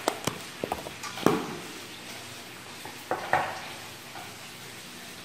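Pork fat sizzling steadily as it renders into cracklings in a pan, with a few sharp clinks and knocks of kitchenware, the loudest about a second in and two more near the middle.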